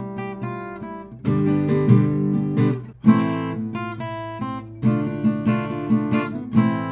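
Acoustic guitar played solo: chords picked and strummed by hand, a new chord struck every second or two and left to ring.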